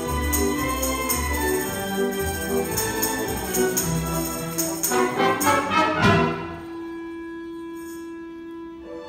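Community orchestra playing full and loud, building to a sharp accented chord about six seconds in. It then drops to one soft held note.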